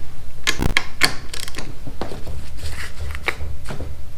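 Hand tools working a bolt on a motorcycle engine case: a quick run of sharp metal clicks with a few louder knocks, in a fast, uneven rhythm.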